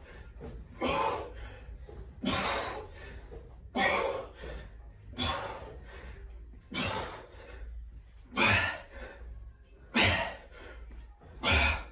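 A man's hard exhalations with effort, one short breath out about every one and a half seconds, about eight times, each timed to a V-sit crunch rep.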